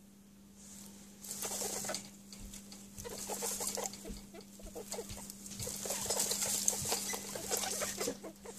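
Newborn French Angora rabbit kits squeaking and stirring in a nest of straw and fur, with straw rustling as a hand reaches in. It comes in busy, irregular stretches starting about a second in.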